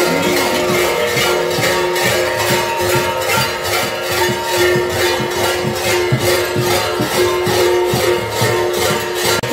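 A cluster of large kukeri bells (hlopki) clanging together in a steady rhythm, about three strokes a second over a continuous metallic ringing.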